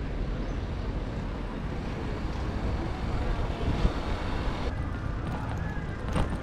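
Steady wind rumble and rolling road noise on a bicycle-mounted camera's microphone while riding, with town traffic around.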